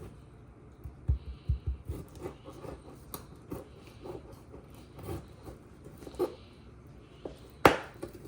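A kitchen knife cutting raw rib meat against a cutting board: irregular knocks, taps and scraping strokes, with one sharp loud knock near the end. The blade is dull and struggles to get through the meat.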